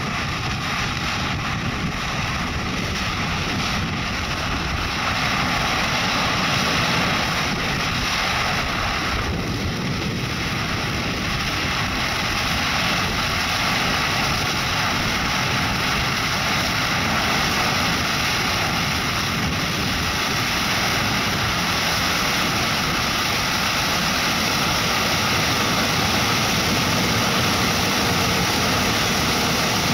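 John Deere S690i combine harvester running steadily while harvesting corn: a continuous drone of engine and threshing machinery that grows gradually louder as the machine comes closer.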